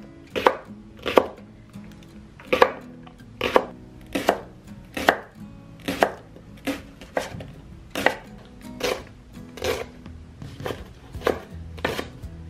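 Chef's knife slicing leeks into rounds on a wooden cutting board: a steady series of sharp knocks of the blade through the stalks onto the board, about two a second.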